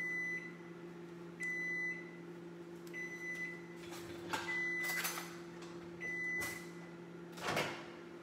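Countertop microwave oven beeping its end-of-cycle signal: five long beeps at one steady pitch, about a second and a half apart, telling that the cooking time is up. Near the end there is a brief clatter as the door is opened.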